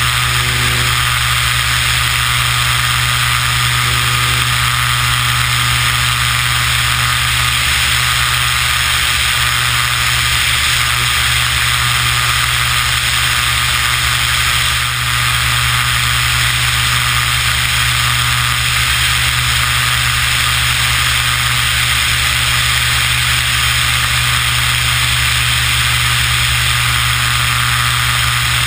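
Beechcraft BE33 Bonanza/Debonair's piston engine and propeller running steadily in flight, heard under a dense rush of wind on a camera mounted under the wing.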